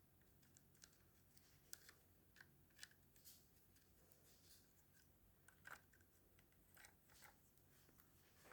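Near silence with a few faint, scattered small clicks and ticks: small engine parts and tools being handled.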